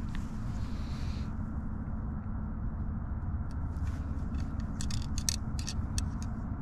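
Steady low rumble, with a run of light clicks and scrapes in the second half as a blowgun and its fishing dart are handled.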